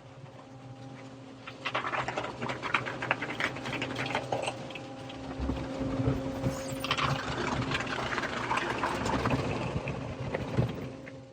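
Touch car wash brushes and cloth strips scrubbing and slapping hard against a Jeep's soft top and windows, heard from inside the cab: a dense, rapid clatter that starts about a second and a half in and stops just before the end, over a steady low hum.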